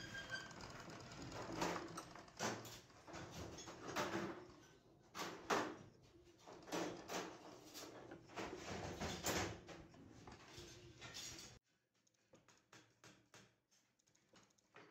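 Irregular metal clinks and knocks of a hand tool and small steel parts being fitted to a sewing machine head. They stop abruptly a little past two-thirds of the way in, and faint rapid ticking follows.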